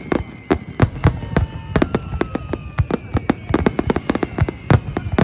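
Aerial fireworks barrage: shells bursting in rapid, irregular booms and cracks, several a second, the loudest near the end.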